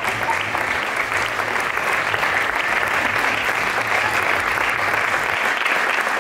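Audience applauding steadily, a dense clapping with no breaks.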